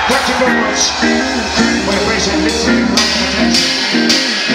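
Live reggae band playing: guitar chords over bass and cymbals, with a held bass note that drops out near the end.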